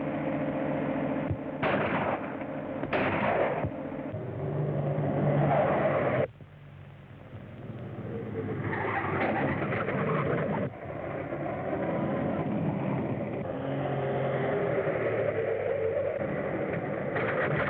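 Early-1930s car engine running at speed on an old, thin film soundtrack. The sound drops away abruptly about six seconds in, then builds back up to a steady run.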